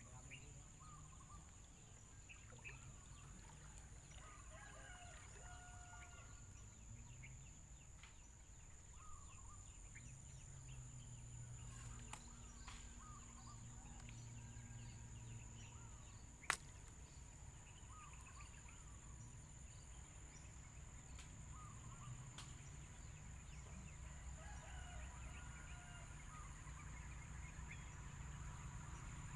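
Faint distant roosters crowing and birds calling, over a low rumble and a steady high tone. A single sharp click about sixteen seconds in.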